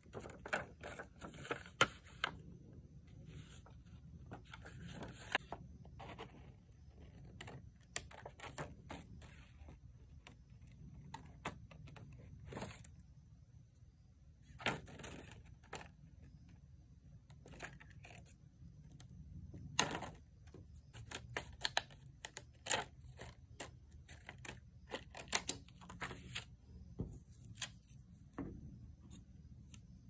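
Small scissors snipping around paper flower stickers: irregular sharp snips and clicks, with short rustles of paper being handled and slid on the table.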